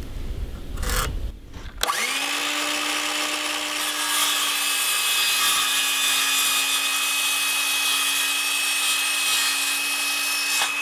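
DeWalt 18V cordless circular saw spinning up about two seconds in, after some handling noise, then running at a steady whine while cutting through a 2x4, a little louder from about four seconds in.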